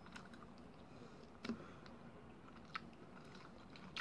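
Faint chewing of a sticky, chewy banana taffy with the mouth closed, with a few small clicks, the loudest about a second and a half in.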